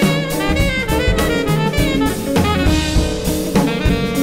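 Jazz septet playing, with a drum kit keeping busy time under pitched melody lines that move quickly from note to note.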